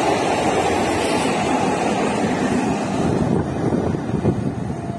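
Passenger coaches of a fast express train rushing past on the rails: a dense rumble with rapid wheel clatter and wind on the microphone. The sound drops off after about three seconds, with a single sharp knock a little after that.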